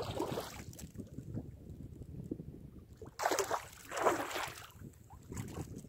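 Hooked fish splashing and thrashing at the water's surface as it is played close on the line, several splashes with the loudest two about three and four seconds in, over wind rumble on the microphone.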